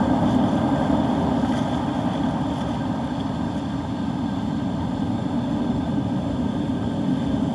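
Wind buffeting the microphone: a steady, churning low rumble with a wash of noise above it.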